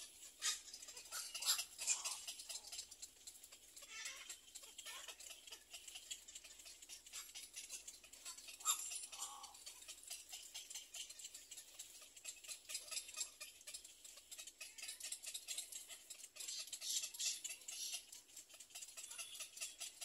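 Little egret nestlings' faint, rapid ticking and chattering calls, mixed with rustling in the twig nest, coming and going in short bursts.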